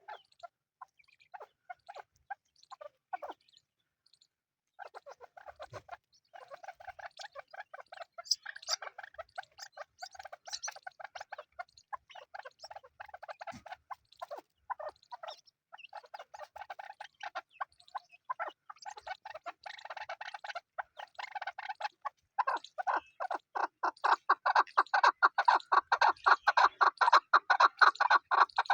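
Chukar partridges calling: a few scattered short notes, then from about five seconds in a continuous rapid chatter of short calls, several a second. The chatter grows louder and denser near the end.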